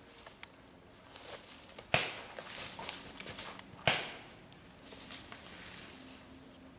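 Two sharp paintball marker shots about two seconds apart, the second near the middle, amid rustling and footsteps in dry leaves and undergrowth.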